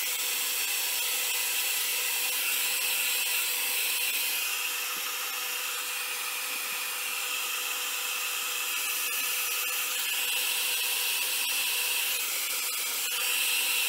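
Hand-held hot-air blow dryer running steadily, a constant high whine over a hiss of rushing air.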